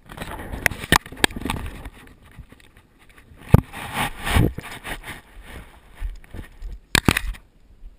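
Handling noise from a camera being gripped and carried: sharp knocks and clicks on its housing with rubbing and rustling between them. The loudest knock comes about three and a half seconds in, and two quick knocks come near the end.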